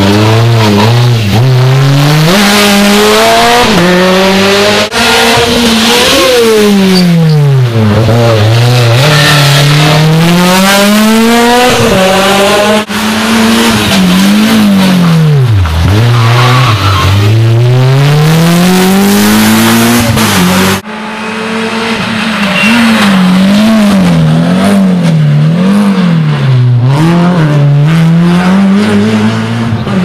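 Rally cars' engines revving hard through a bend one after another, among them a Citroën C2 and a Renault Clio. Each engine's pitch climbs through the gears and drops at the shifts and lifts. In the last third one engine's revs rise and fall quickly, about once a second.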